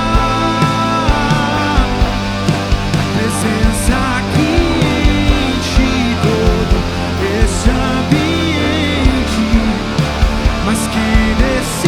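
Live worship band playing an instrumental passage: drums keeping a steady beat under bass, keyboard and electric guitar, with a melodic line bending in pitch over sustained chords.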